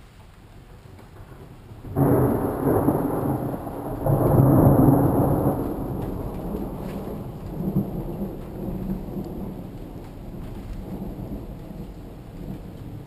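Thunder during steady rain. A sudden loud clap comes about two seconds in, a second, louder peal follows a couple of seconds later, and then a long rumble slowly fades.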